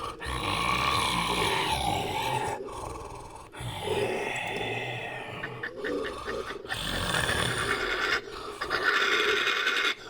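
Invented creature sound effect: animal growls and snarls spliced together from short pieces, with several abrupt cuts between them.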